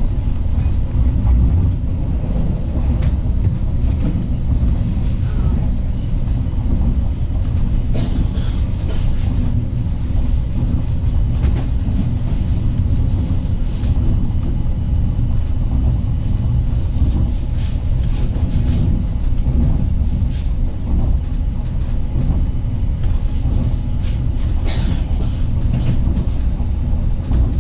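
Ride noise inside a moving 36WED electric multiple unit: a steady low rumble of wheels on rail, with scattered short clicks and rattles.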